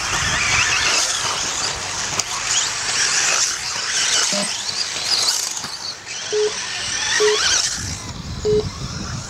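Several electric radio-controlled off-road race cars' motors whining, the pitch gliding up and down as the cars speed up and slow around the track. Three short beeps sound in the second half.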